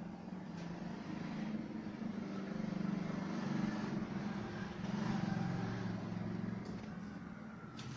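A low mechanical hum, swelling to its loudest around the middle and easing off, with two light clicks near the end.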